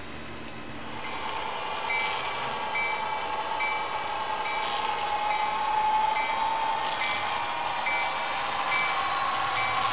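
Model diesel locomotive sound with its bell ringing evenly, about once every 0.8 s, over a whining running tone that sags and rises in pitch. The running sound swells about a second in and the bell starts about two seconds in.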